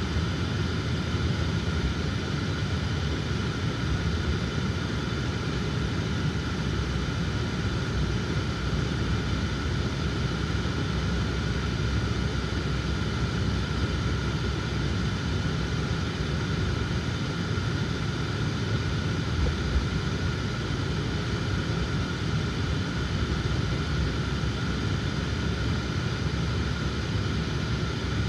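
Steady road and engine noise inside a moving car's cabin: a low, even rumble with a faint steady tone higher up, unchanging throughout.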